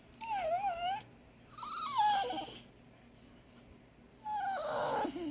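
Dog whining in three high-pitched cries: a wavering whine, then two whines that slide down in pitch, the last one longest.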